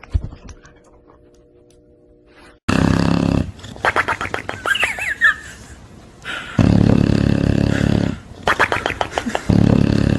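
An animal giving loud, harsh calls in three long bursts, the first about two and a half seconds in, each with a rapid pulsing rasp.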